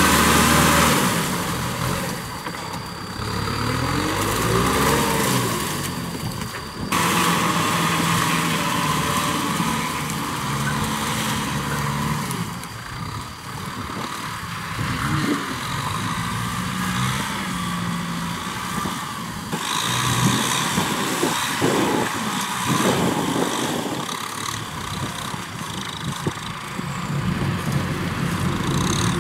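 Kubota M6040SU tractor's four-cylinder diesel engine running under load while driving a rear rotary tiller through wet, muddy soil. The engine note rises and falls in pitch, with an abrupt change about a quarter of the way through.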